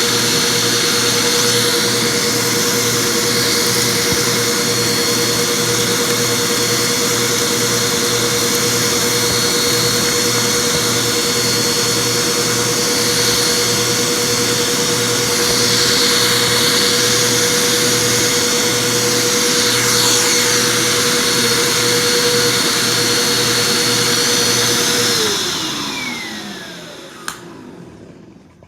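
Vacuum cleaner running steadily with a constant motor whine, then switched off about 25 seconds in, its motor winding down with a falling pitch.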